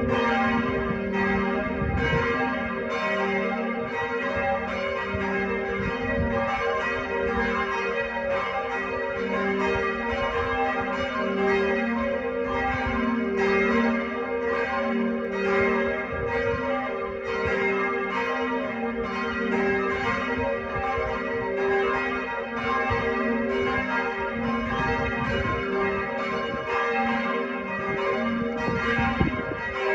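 Church bells pealing: several swinging bells of different pitches striking over and over in overlapping strokes, over a steady low hum of ringing bells.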